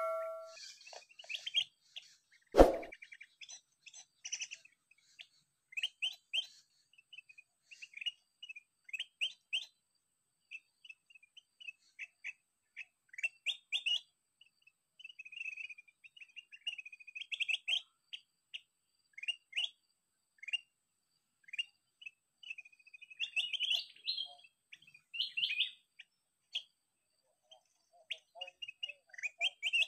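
Kutilang emas bulbul calls, the lure song played from an MP3 player: short sharp chirps in quick clusters every second or two, with busier chattering runs around the middle and near the end. About two and a half seconds in, a single sharp knock with a brief ringing tone is the loudest sound.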